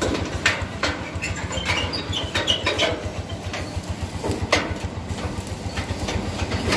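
A small engine idling steadily with a rapid low pulse, and a few sharp clicks and knocks over it, one about half a second in and another past the middle.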